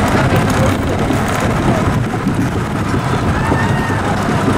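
Wild mouse roller coaster car being hauled up its chain lift hill: the lift chain rattling and clattering steadily under the car.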